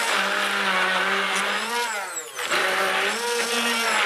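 Hand-held immersion (stick) blender running in a plastic jug, puréeing leafy greens, oil and grated cheese into pesto. Its steady motor whine dips in pitch and comes back up about halfway through.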